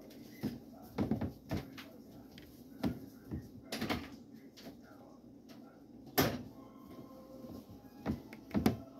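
Scattered light knocks and clicks of household handling in a kitchen, like cupboard doors closing and things being set down, about ten in all, the loudest about six seconds in.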